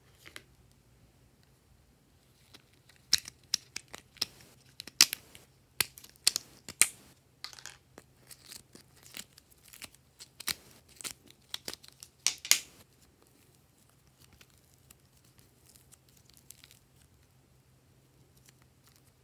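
Soft modelling clay being pulled apart, squeezed and pressed together by hand, giving sharp sticky crackles and tearing clicks. They come thick and fast for several seconds, then thin out to faint occasional sounds.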